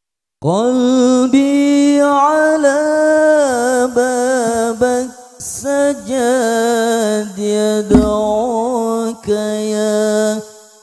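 A solo male voice sings a slow, unaccompanied, melismatic devotional line into a microphone, in long held notes with ornamented turns and short breaths between phrases. There is a single low thump about eight seconds in.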